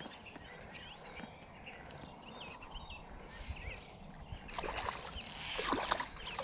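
A hooked redfin perch splashing at the surface as it is reeled in to the bank, loudest for about two seconds near the end.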